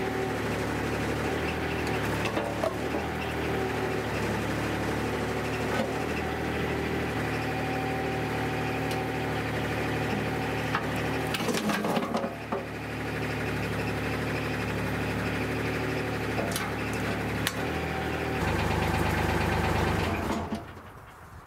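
Mini excavator engine running steadily while the bucket and homemade steel thumb are worked, with a few knocks and clanks as they handle a wooden post and a steel ladder, the densest cluster about halfway through. Near the end the low engine hum grows louder for a couple of seconds, then the engine sound drops away.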